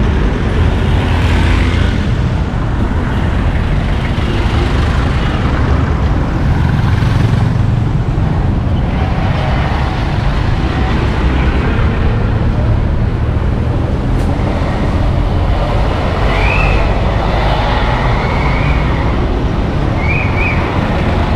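Steady road traffic: vehicle engines and tyres passing in a continuous rumble. There are a few short high squeaks near the end.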